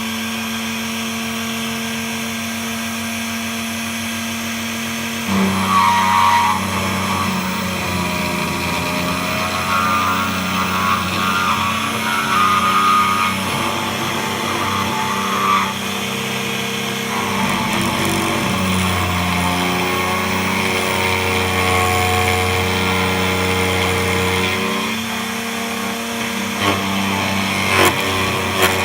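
DEFU 368A key cutting machine's motor running with a steady hum. About five seconds in, the cutter starts milling the key blank, adding a rougher grinding whose pitch shifts as the laser-cut key is traced. A few sharp clicks come near the end.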